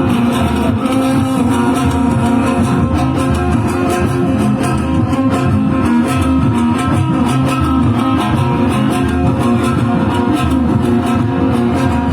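A live band playing an instrumental passage led by a plucked string instrument such as an electric guitar, with no singing.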